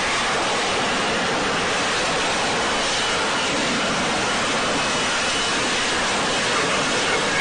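Jet engine running at close range: a loud, steady, even roar with no distinct tones, cutting in abruptly just before the start.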